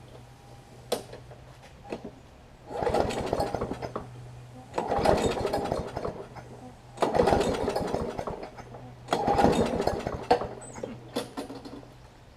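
Briggs & Stratton Classic single-cylinder push-mower engine being pull-started four times about two seconds apart, each pull turning it over with a rapid chugging that dies out within a couple of seconds rather than settling into a run.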